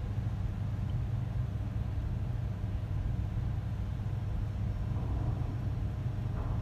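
Steady low rumble of background noise, with faint rustling handling sounds near the end.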